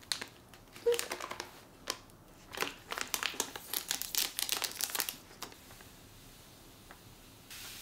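Plastic pouch of powdered milk crinkling as it is torn open and handled, for about five seconds. Then it goes quiet, and powdered milk is poured into a glass jar, with a soft hiss near the end.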